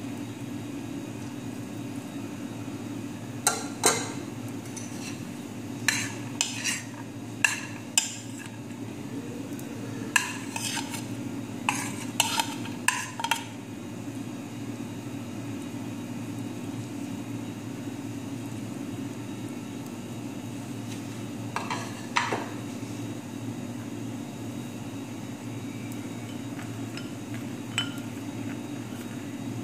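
Metal spoon clinking and scraping against a glass serving plate as minced meat is spooned onto rice: a run of sharp clinks in the first half, then a couple more near the end. A steady low hum runs underneath.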